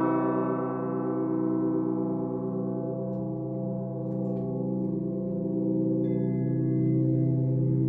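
Russian Orthodox church bell ringing on after a strike, a deep hum with many overtones slowly dying away. Faint higher ringing from a smaller bell comes in about six seconds in.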